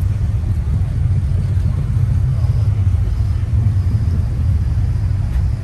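A car engine running steadily close by, a deep, even rumble.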